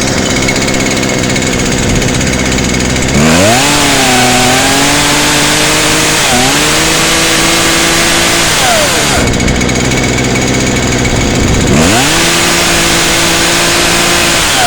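Two-stroke chainsaw with a replacement carburetor idling, then revved up twice: a quick climb to high speed about three seconds in, held with a short dip, back down to idle around nine seconds, and up again around twelve seconds before falling near the end. It revs up and holds speed well.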